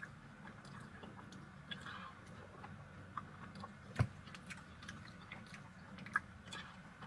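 Faint eating sounds: a plastic spoon clicking against a cup of frozen blended latte and small mouth noises, with a sharper knock about four seconds in, over a low steady hum.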